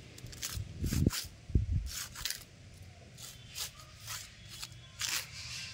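Bundle of dry twigs swept and scraped across a concrete floor by a monkey: repeated short, scratchy strokes at about two a second. A couple of dull thumps sound about a second in.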